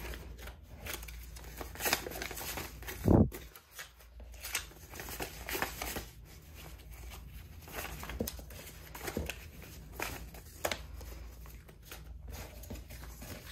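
Paper banknotes rustling and flicking as US dollar bills are sorted and counted by hand, with irregular short crinkles and snaps, and a single louder thump about three seconds in.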